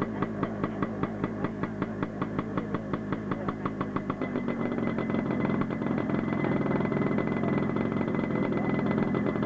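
Yamaha RMAX unmanned helicopter's two-stroke twin engine running, its rotor thumping about four times a second. The beat quickens and blurs into a steady drone with a high whine about halfway through as the rotor spins up.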